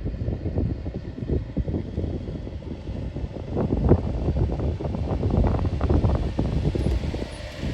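Strong wind buffeting the microphone in uneven gusts, a low, rumbling noise.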